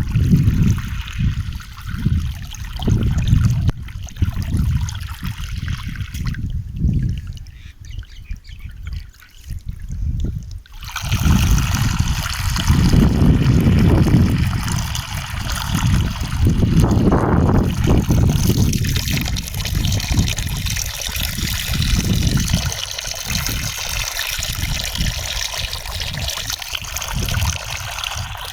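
Running water trickling and splashing, over a deep, uneven low rumble. About eleven seconds in, the sound changes abruptly to a louder, brighter rushing hiss.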